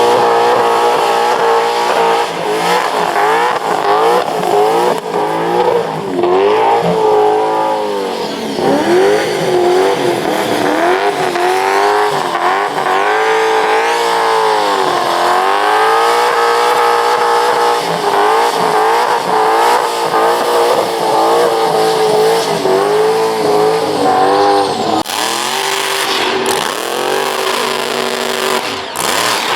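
A car doing a burnout: the engine is held at high revs that repeatedly rise and dip, over the hiss and squeal of spinning tyres. Near the end the tyre noise grows harsher.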